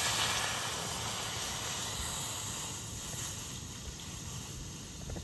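Milk poured in a steady stream from a plastic packet into a steel pot: a continuous splashing hiss, loudest at first and slowly getting quieter.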